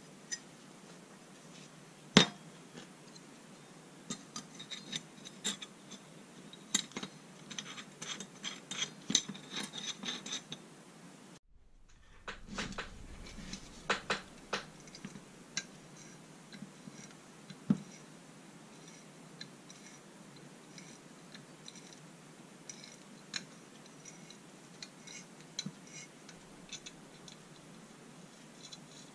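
Small steel plates, bolts and nuts clinking and tapping as they are handled and fitted together on a workbench, with one sharp knock about two seconds in. Bursts of quick clinks come in the first third and again around the middle, thinning out to occasional ticks later.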